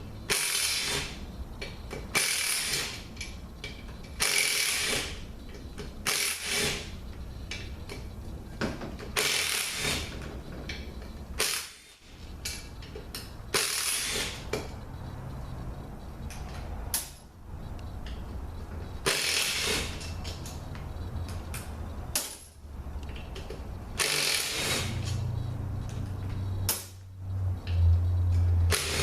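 Ratchet with a Torx T30 bit clicking in short repeated bursts, one after another, as the T30 bolts holding the pump and stator to the bell housing of a Mercedes 722.6 automatic transmission are backed out.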